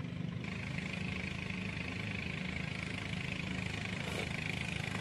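An engine running steadily at idle, a low even hum, with a steady higher buzz joining about half a second in.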